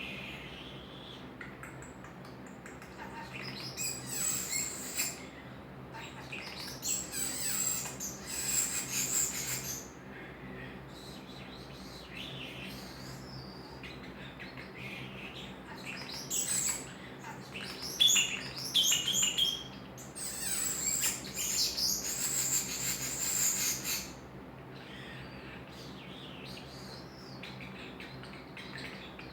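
Pet starling singing: several bursts of high chattering warble and whistles with short pauses between them, the loudest bursts in the second half.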